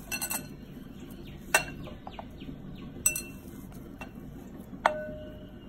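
Metal murukku press cylinder clinking against a glass mixing bowl while dough is packed into it by hand: a few quick light clinks at the start, then three sharp clinks about a second and a half apart, the last ringing on briefly.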